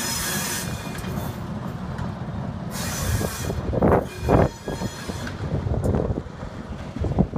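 Alco S-1 switcher locomotive's diesel engine running as it creeps along the track, with a hiss of air that stops about half a second in. About four seconds in, the wheels and running gear give two loud bursts of noise.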